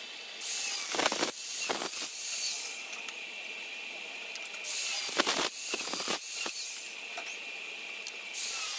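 Stainless steel round tubes being handled, sliding and scraping against one another with a few sharp metallic knocks, in three bursts separated by quieter pauses.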